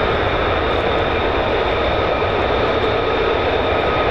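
F-15E Strike Eagle's twin jet engines running loud and steady: a constant rush with a high, even whine over it.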